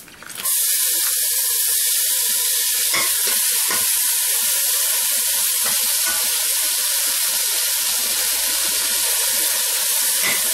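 Chopped onion and tomato hitting hot oil in a stainless steel pan with frying shredded dried beef: a sizzle starts suddenly about half a second in and holds steady. A spatula stirs through it, scraping the pan now and then.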